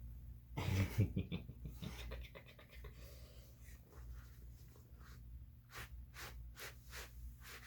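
Close rubbing and rustling of a pet's fur as it is handled and petted, with a thump and rustle about a second in. Near the end comes a run of rhythmic breathy strokes, about three a second.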